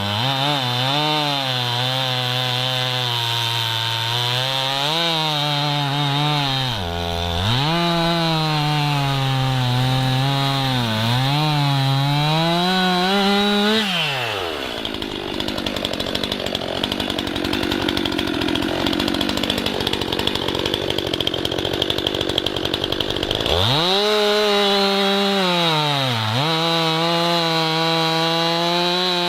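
Stihl MS 261 two-stroke chainsaw bucking an aspen log: running at full throttle with its pitch sagging and recovering as the chain bites into the wood. About halfway through it drops to idle for roughly ten seconds, then revs up and cuts again.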